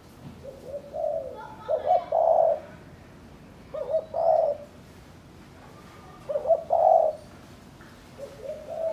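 Spotted dove cooing, repeating its rolling coo phrase four times, about once every two and a half seconds.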